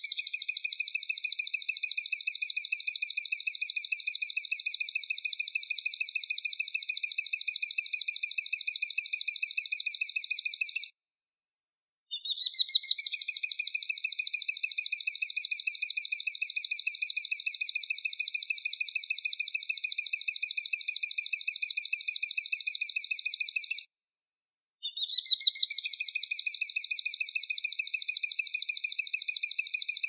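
A recorded bird call sold as an eagle (elang) masteran, a tutor recording for songbirds. It is a high, fast, even run of chirps in long bouts that break off for about a second at roughly 11 and 24 seconds in. Each bout starts with a short rising lead-in.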